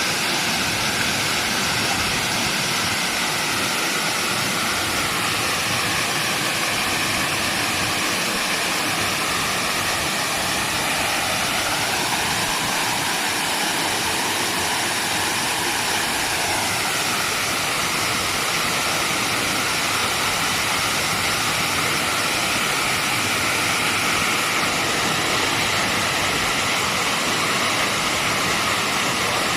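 Steady rushing noise of a waterfall, unbroken and even in level.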